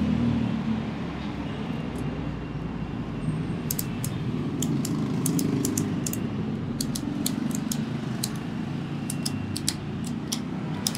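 ARB ratchet strap being cranked tight: sharp metallic clicks of the ratchet, coming irregularly about twice a second from a few seconds in, over a steady low traffic rumble.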